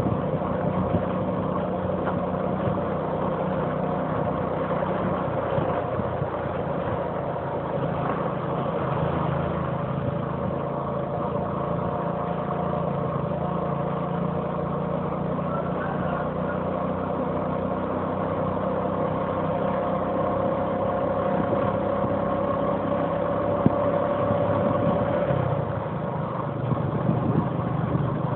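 An engine running steadily at an even speed, with a single sharp knock near the end.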